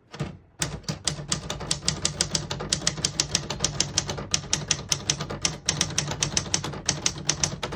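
1967 Smith-Corona Corsair manual portable typewriter being typed on at a steady pace, the typebars clacking against the platen about six times a second.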